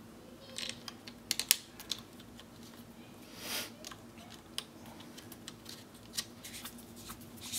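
Irregular light clicks and taps of a polymer flashlight mount being handled and fitted onto an AR-15's A2 front sight base, with a brief soft rustle about three and a half seconds in.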